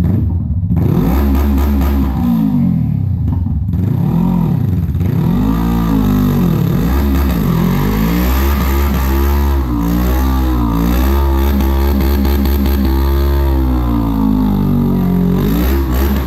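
Honda CBR500 motorcycle engine revved hard over and over, its pitch sweeping up and down, during a stationary burnout with the rear tyre spinning on the concrete.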